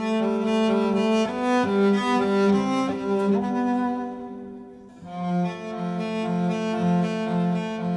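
Background music of slow, sustained bowed-string notes. It fades down about four seconds in and comes back a moment later.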